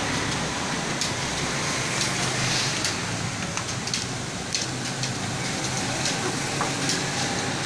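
Computer keyboard being typed on: irregular keystroke clicks, several a second, over a steady background hum.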